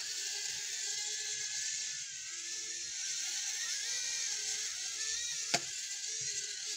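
A small battery-powered flying toy's electric motors and propellers whir at a high pitch that wavers up and down, with one sharp click about five and a half seconds in.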